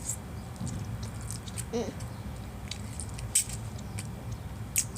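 Eating sounds from a child eating ramen: scattered sharp little clicks and smacks, with a brief hum about two seconds in, over a steady low background hum.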